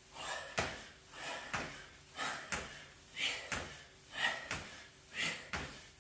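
Jump squats: trainer-clad feet landing on a tiled floor about once a second, each landing a short thud, alternating with a forceful breath out.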